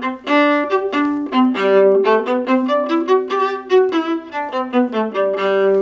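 Viola played with a brushy spiccato bow stroke, the bow bouncing lightly off the string: a quick passage of short, separated notes, the spiccato typical of classical-era music.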